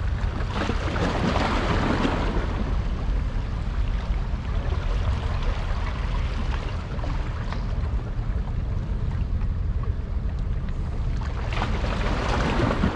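Steady rushing wind noise on the microphone with a constant low rumble, swelling into a louder hiss about a second in and again near the end.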